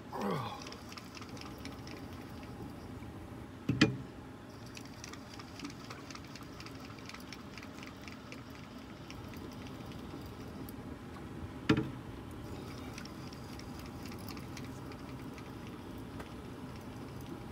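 Baitcasting fishing reel ticking rapidly and evenly as line is cranked in on a hooked gar. Two sharp knocks, the loudest sounds, come about four and twelve seconds in.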